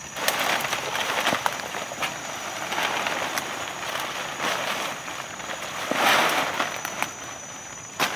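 Dry leaf litter and undergrowth rustling and crackling, with scattered sharp snaps, swelling loudest about six seconds in, as someone moves through it on the forest floor.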